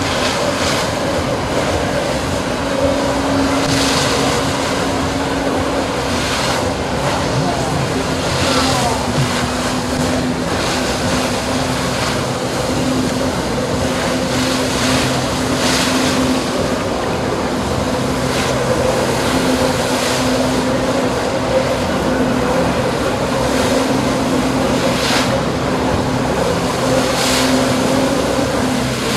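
Jet ski engine running steadily at high revs, driving water up the hose to a flyboard, with the hiss and spray of the water jets. The spray swells briefly every few seconds.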